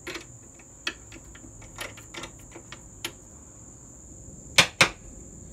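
Light metallic clicks from hands working a wood lathe's three-jaw chuck, then two sharp knocks in quick succession near the end. A steady high-pitched whine sounds throughout.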